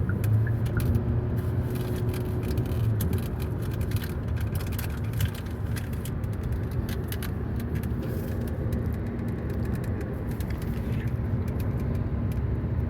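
Road and engine noise inside a moving car's cabin: a steady low rumble with scattered light ticks over it.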